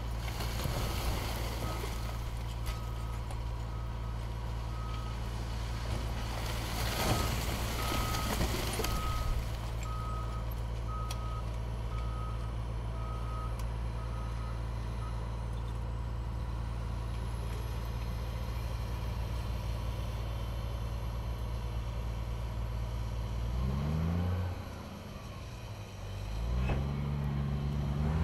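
Heavy diesel earthmoving equipment working a landfill: the engines run steadily while a reversing alarm beeps in an even series through the first half, then falls silent. Near the end one engine note drops and quiets briefly, then revs back up.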